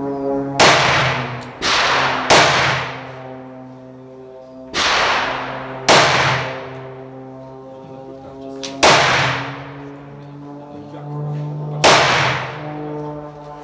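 Seven gunshots at irregular intervals, each a sharp crack followed by a long echo off the enclosing walls, over a steady low hum.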